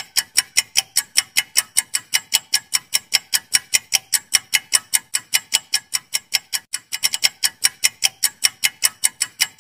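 Countdown-timer ticking sound effect: a fast, even run of sharp clock-like ticks, about five a second. It starts and stops abruptly with the timer.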